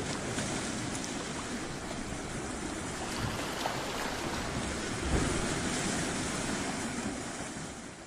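Sea waves washing and surging, a steady rush of water with a stronger low surge about five seconds in, beginning to fade near the end.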